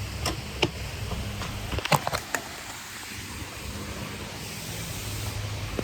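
Steady rushing of a waterfall, with a few sharp clicks and knocks in the first two and a half seconds, the loudest cluster about two seconds in.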